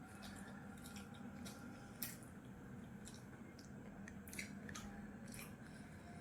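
Faint eating sounds: scattered wet mouth clicks and chewing, a dozen or so short snips spread irregularly, over a low steady hum.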